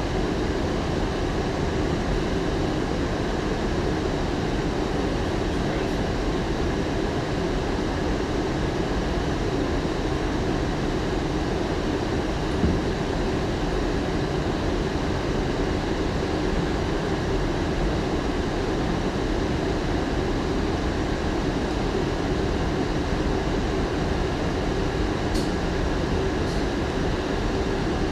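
Bombardier-built R179 subway car running at steady speed: a constant rumble of wheels on rail with a faint steady high tone over it, and a single click about halfway through.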